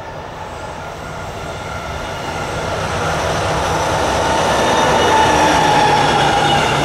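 Intermodal container freight train approaching and passing close by, its locomotive's low steady hum and the rolling of the wagons on the rails growing steadily louder. A thin whine joins it in the second half.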